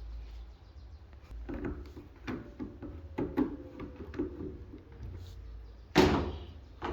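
Irregular light knocks and clicks, like parts and tools being handled, then one louder knock about six seconds in.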